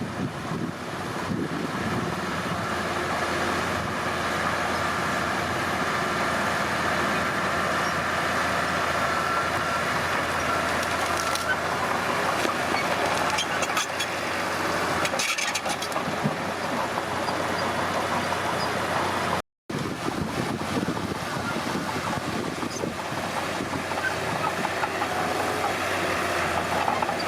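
Komatsu D31P bulldozer's diesel engine running steadily under work, with a few metallic clanks in the middle. The sound cuts out for a moment about two-thirds of the way through.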